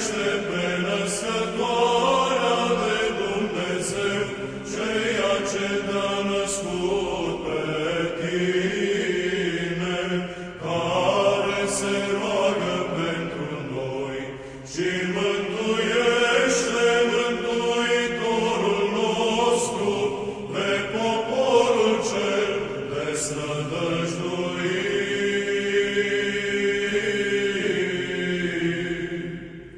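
Orthodox church chant sung in long, sustained melodic phrases, with short breaks between phrases.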